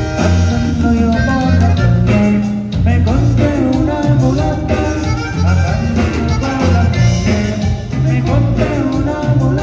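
Live conjunto band playing: a button accordion carries the melody over an alternating bass-guitar line, guitar and a steady drum beat.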